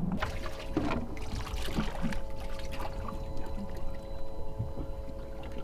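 Water splashing and trickling at a fishing boat's side as a snapper is hauled up and handled, with a steady machine hum and a low rumble underneath.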